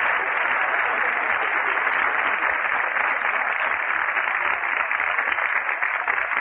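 Live studio audience laughing and applauding after a joke, a steady crowd noise that holds for several seconds.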